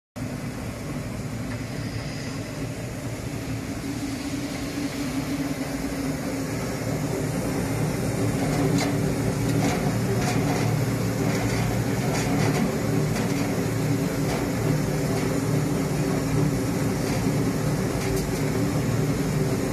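Continuous brush-screw potato washing and peeling machine running loaded with potatoes: a steady mechanical hum with scattered clicks and knocks, growing somewhat louder over the first several seconds.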